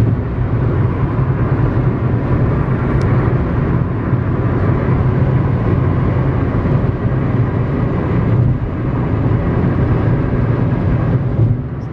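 Steady road noise and low engine hum of a car on the move, unchanging throughout.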